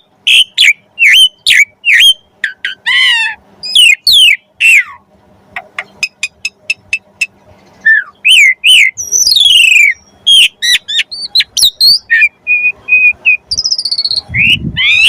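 Asian pied myna (jalak suren) singing a loud, varied song of quick whistled notes sliding up and down, buzzy rattles, and a fast run of evenly spaced ticks about six seconds in. The song is full of mixed-in imitated phrases (isian).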